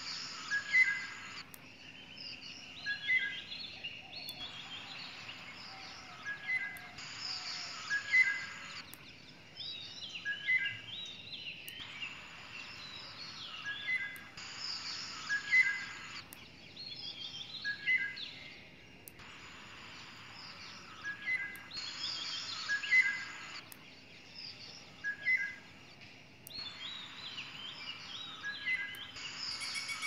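Birds chirping and calling, with a short two-note call recurring every second or two among higher chirps, over a hiss that cuts in and out.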